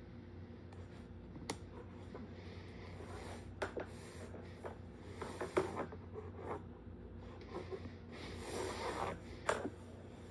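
Kittens scampering after plastic toys on a laminate floor: scattered scrapes, skitters and a few sharp clicks of paws and toys, over a steady low hum.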